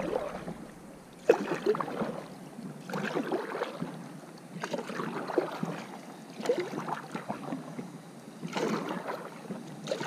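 Kayak paddle strokes in calm water: a splash and trickle of drips about every one and a half to two seconds.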